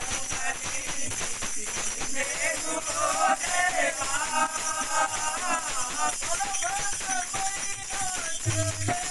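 Devotional bhajan: a man sings over tabla, with a steady jingle of small hand cymbals. The singing comes in about two and a half seconds in, and deep bass-drum strokes of the tabla sound near the end.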